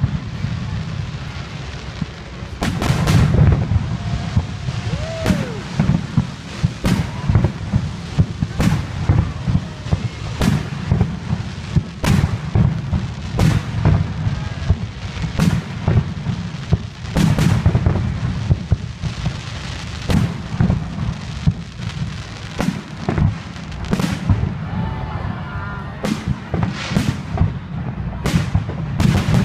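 Fireworks display: a rapid, continuous string of sharp shell bursts, one every second or less, over a deep rolling rumble.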